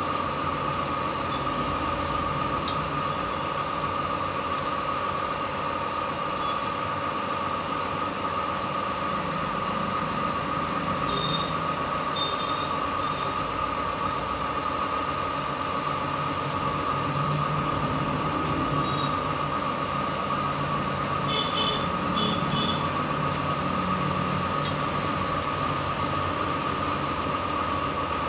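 Steady machine hum with a constant whine, like a motor running without change. A few faint short high chirps come about eleven seconds in and again about twenty-one seconds in.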